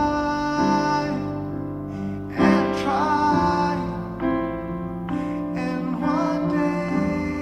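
A man singing a slow ballad over his own Steinway grand piano accompaniment, with sustained chords under the voice.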